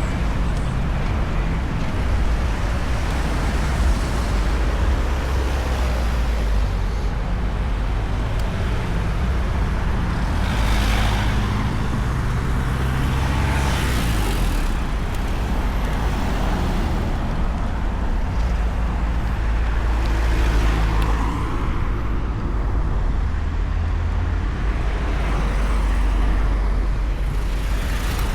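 Road traffic: a steady low rumble with about four vehicles passing one after another, each swelling and fading over a second or two.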